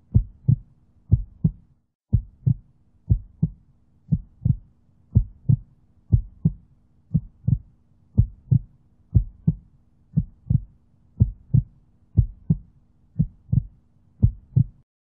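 Heartbeat sound effect: paired lub-dub thumps about once a second over a faint steady hum, with a short break about two seconds in, stopping just before the end.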